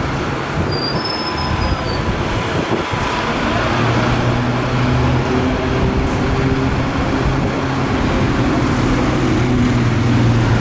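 Busy street traffic with a bus passing, and a brief high squeal about a second in. From about three seconds in, a diesel engine runs low and steady under the road noise.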